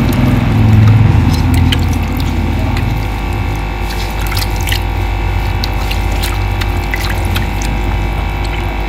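Beef trotters being rubbed and turned by hand in a pot of water: splashing, sloshing and dripping in scattered small splashes. A steady hum runs underneath, with a heavier low rumble in the first two seconds.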